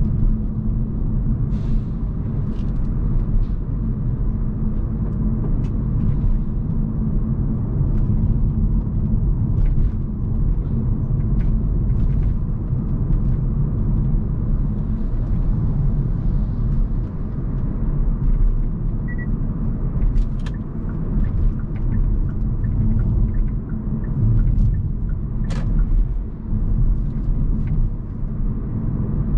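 Hyundai Kona Hybrid driving along a road: a steady low rumble of tyres and road, with a faint hum and scattered small clicks and knocks, one sharper knock near the end.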